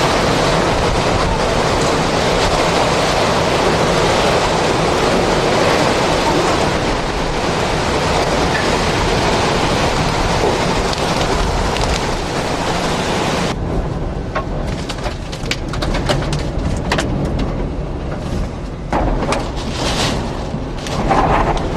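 Hurricane-force wind and driving rain, a dense, loud rush. About two-thirds through it turns gusty and uneven, with the wind buffeting in blasts.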